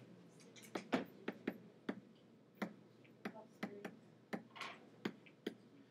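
Faint, irregular clicks and taps of a stylus pen on a writing tablet while numbers are handwritten, about a dozen sharp ticks with a brief scratch partway through.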